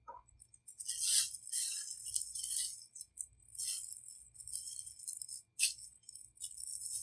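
Plastic piping bag crinkling and rustling in irregular bursts as it is handled and filled with royal icing, with a sharp crackle about halfway through.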